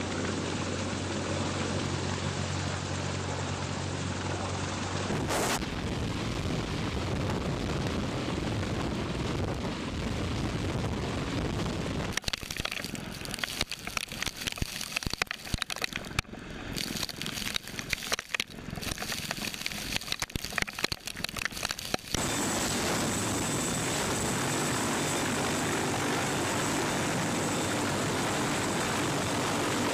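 Sikorsky CH-53 heavy-lift helicopter hovering close overhead: rotor and turboshaft engine noise, with rotor downwash buffeting the microphone in choppy, irregular gusts through the middle section and a steady high turbine whine in the last third.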